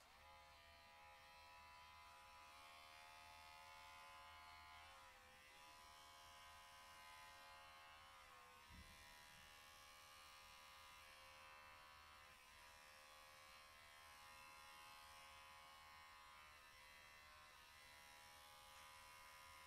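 Electric pet hair clipper running with a steady high buzz that starts and stops abruptly. Its pitch sags briefly a few times, most around the middle, where there is also a small knock.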